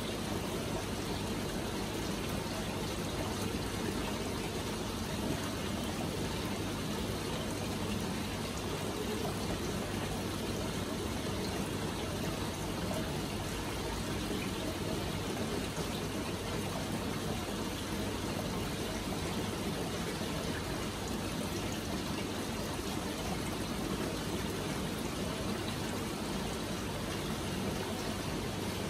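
Water from a pond filter return splashing steadily into the pond, driven by a small 25 W pond pump, with a low steady hum underneath.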